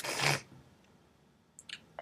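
A short, sharp breath in, about a third of a second long, followed by near quiet and a couple of faint mouth clicks near the end.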